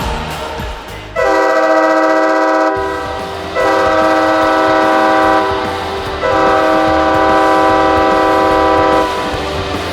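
San Diego Gulls' arena goal horn sounding three long blasts, each a chord of several steady tones; the first two last under two seconds and the third is longest, about three seconds.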